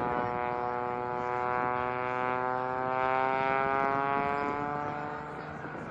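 U.S. Air Force Thunderbirds F-16 fighter jet flying past and moving away: a whining engine tone that slides slowly down in pitch and fades near the end.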